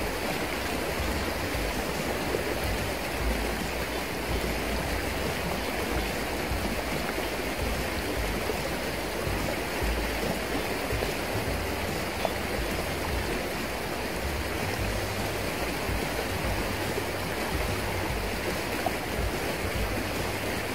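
Shallow river riffle rushing steadily: a continuous, even hiss of flowing water, with a low rumble underneath.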